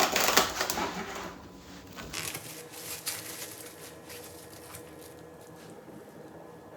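A crinkling plastic rustle as a bowl of marinated chicken is covered, loudest in the first second, followed by a few light clicks and rustles of handling.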